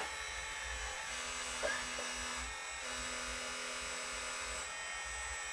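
Scale radio-controlled hydraulic excavator running, its small electric pump giving a steady high whine, with a lower tone coming in twice for a second or two as the boom and bucket move.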